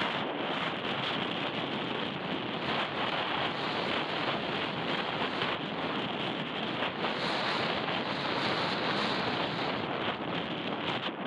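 Steady wind rushing over an action camera's microphone while riding at a gallop.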